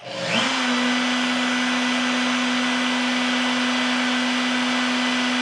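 CNC trim router motor switched on from the controller, spinning up in under half a second and then running at a steady pitch with an even whine and hiss.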